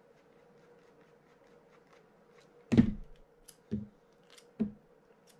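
A small precision screwdriver backs out the side-plate screws of a fishing reel, with faint small clicks. About halfway through there is a sharp knock, then two softer knocks about a second apart, as the screwdriver and loosened screws are put down on the work surface.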